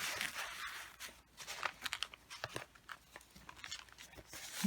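Paper and card rustling and crinkling as the pages and tucked-in tags of a handmade junk journal are handled, with a few light clicks and taps.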